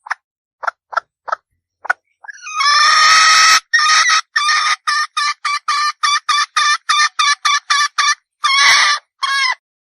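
Red junglefowl hen calling. A few short clucks are followed by a long squawk about two seconds in. Then comes a fast, even run of cackling notes, about three a second, with a longer call near the end before it stops.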